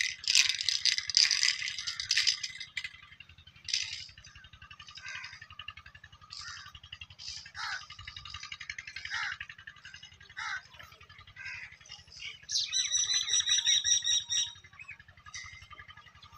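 Birds chirping in short, scattered calls. A rattling noise fills the first few seconds, and a steady high whistle is held for about two seconds near the end.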